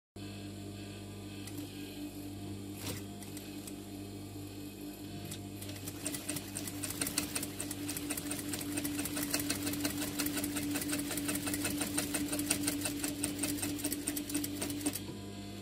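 Sewing machine stitching a seam through vinyl: a steady motor hum under a rapid, even ticking of the needle. The stitching speeds up and gets louder about six seconds in, and stops just before the end.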